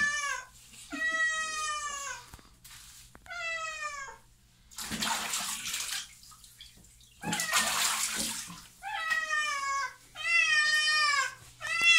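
A cat crying in repeated long meows, each falling in pitch, about five in all, in distress at being bathed. In a gap in the middle come two brief rushes of splashing water.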